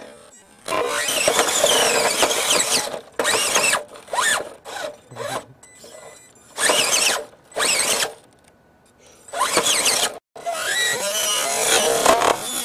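Scale RC rock crawler's electric motor and geared drivetrain whining under throttle as it climbs over rocks. The whine comes in repeated bursts of about half a second to two seconds with short pauses between, its pitch sliding up and down as the throttle is worked.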